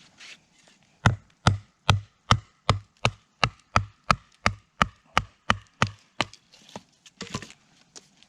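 Wood being chopped with quick, evenly paced strikes: about fourteen sharp blows, roughly two and a half a second, each a thud with a short ring, stopping near the end, followed by a brief rustle.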